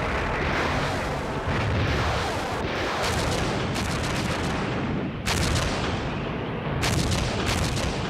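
Artillery barrage: heavy guns firing over and over, their booms blending into a continuous rumble, with sharper reports standing out about three, five and seven seconds in.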